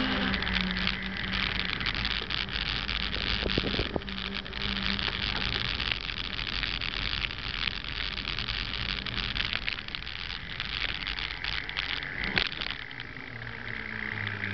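Mountain bike rolling on pavement: the Panaracer Rampage knobby tyres whine over a steady rush of wind on the handlebar-mounted camera's microphone. Two short knocks from bumps, about three and a half seconds in and near the end.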